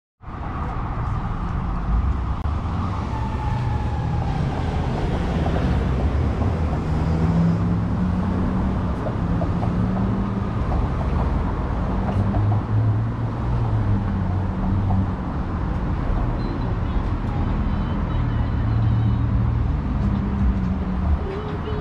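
City street traffic: a steady hum and rumble of cars passing on a busy downtown avenue.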